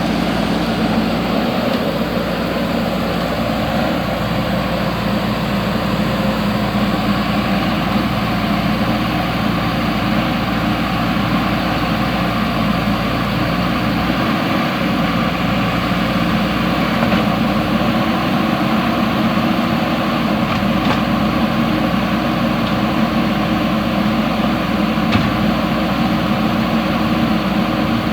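JCB 3DX backhoe loader's diesel engine running at a steady speed, without clear revving.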